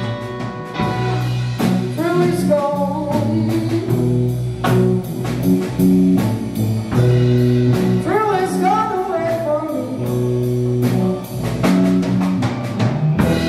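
A young rock band playing live: electric guitar, bass guitar and drum kit, with a sung vocal line over a steady drum beat.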